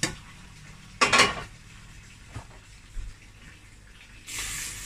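Stainless steel pot clanking against the sink while boiled macaroni is drained into a plastic colander: a sharp knock at the start, a louder clatter about a second in, and a couple of light knocks. Near the end the tap starts running onto the pasta to rinse it.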